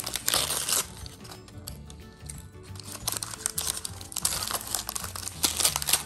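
Tissue paper crinkling and tearing as hands unwrap a small toy. There are loud crackly bursts right at the start and again over the last two seconds, over steady background music.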